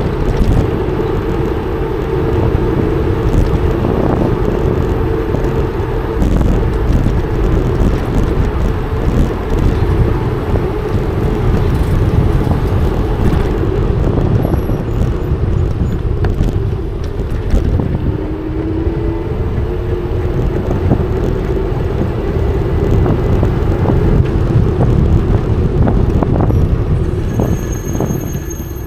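Wind noise on a bike-mounted action camera's microphone while riding an e-bike on city streets, over road and traffic noise, with a steady hum running underneath.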